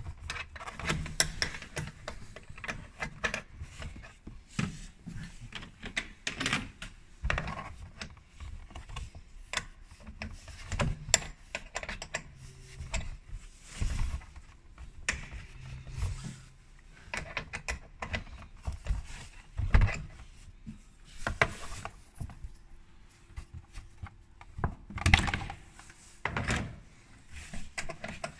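Steel open-end spanner clinking and knocking against a bolt and the surrounding metal in a car's windscreen cowl as the fastener is turned: irregular clicks and knocks, with one sharper knock about two-thirds through.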